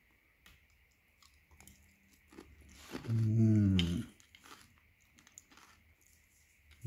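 A man chewing a spoonful of crème brûlée, its caramelized sugar crust crunching with faint small clicks, then a low hummed "mmm" of enjoyment about three seconds in, falling in pitch and lasting about a second.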